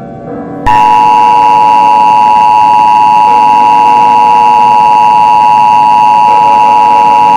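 Emergency Alert System attention signal: a loud, steady two-tone alarm that starts abruptly about a second in and holds without change.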